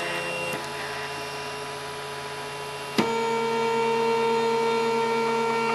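FlashForge Creator 3D printer's stepper motors whining steadily as the machine moves its nozzles into position for bed levelling. About three seconds in there is a click, and the whine then becomes louder as the extruder carriage travels.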